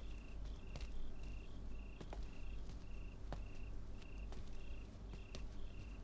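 A cricket chirping steadily, about two short chirps a second, with a few faint clicks.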